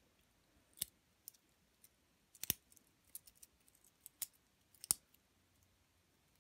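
Space Black stainless steel Apple Watch link bracelet clicking and clinking as it is flexed and turned in the hands: scattered short metallic clicks, the sharpest about two and a half seconds in and again near five seconds.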